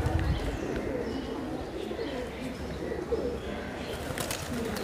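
Pigeons cooing around a feeder, with wings flapping near the end as birds take off.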